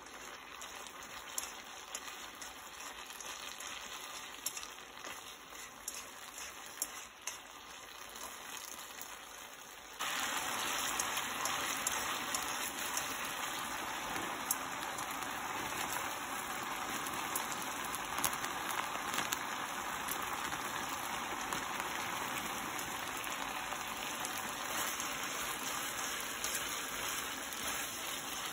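Spaghetti boiling in a shallow pan of water, a steady bubbling and sputtering. About ten seconds in it abruptly becomes louder and harsher, as the starchy water foams up around the pasta.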